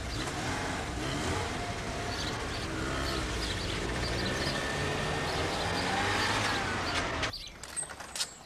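Car engine pulling away and accelerating, its pitch rising and falling as it gathers speed. About seven seconds in it cuts off abruptly, leaving faint bird chirps.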